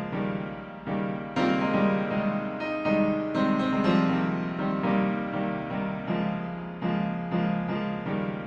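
Instrumental piano music, notes and chords struck every half second or so and each fading before the next.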